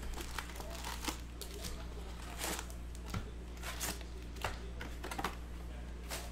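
Foil-wrapped Donruss football card packs being pulled from a hobby box and set down in stacks: irregular light clicks and crinkles, over a steady low hum.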